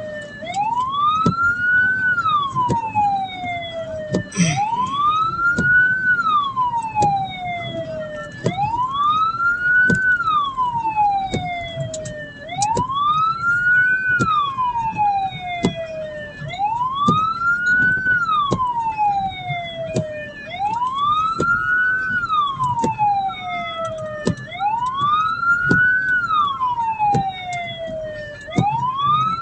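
Hearse siren wailing, each cycle rising quickly and then falling slowly, repeating about every four seconds over the vehicle's engine and road noise.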